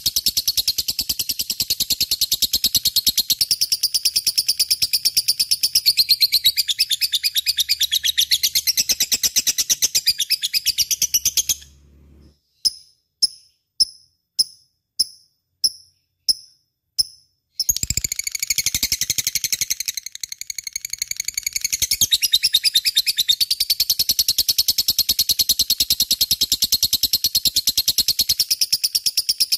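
Lovebird chattering in a dense, rapid stream of shrill high-pitched chirps. About twelve seconds in the chatter breaks off into a string of single sharp chirps, about two a second, then the rapid chatter resumes.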